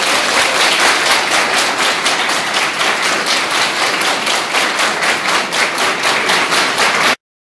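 A large indoor audience applauding, the claps falling into an even rhythm of about three a second. The applause cuts off abruptly near the end.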